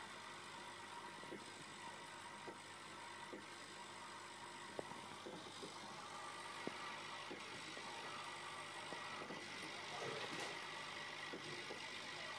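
Faint steady mechanical hum and hiss with a few small clicks, getting slightly louder after about 7 seconds.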